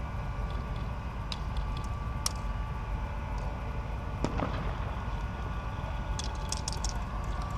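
Airsoft guns firing: a few single sharp clicks, then a quick run of shots near the end, over a steady low rumble.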